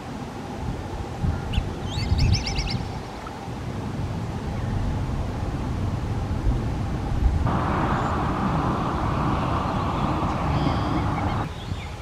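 Wind rumbling on the microphone, with a short, rapid trill of bird notes about two seconds in. A steady hissing buzz starts suddenly about seven seconds in and stops about four seconds later.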